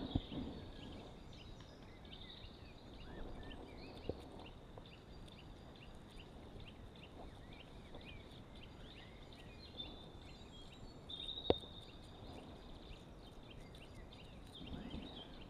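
Quiet pond-side background with small birds chirping and cheeping throughout, and one sharp click about eleven and a half seconds in.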